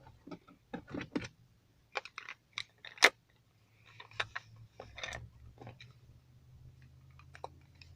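Irregular plastic clicks and taps as the shift knob and its release button are fitted back onto the automatic gear selector lever. The loudest is a sharp click about three seconds in.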